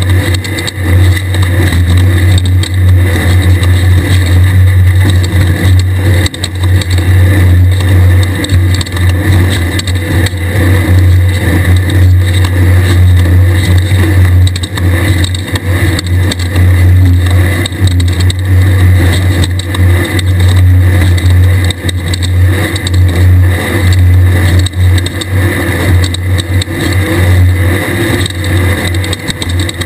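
The air-cooled 1600 cc VW engine of a Class 1/2-1600 desert race buggy running hard with a loud, steady low drone. The level dips briefly a couple of times.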